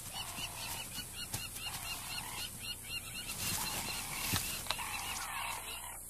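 Soft wild-animal calls come and go four times, over a rapid background chirping of about four chirps a second.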